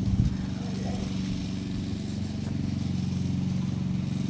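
A motor running steadily with a low, even hum, with a brief thump right at the start.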